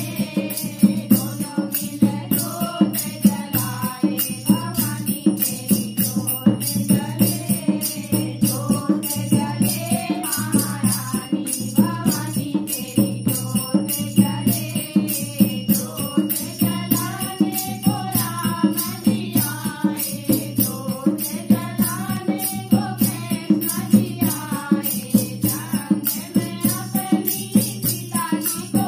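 Women singing a Hindu devotional bhajan together, accompanied by a dholak barrel drum and a fast, even metallic jingling that keeps the beat.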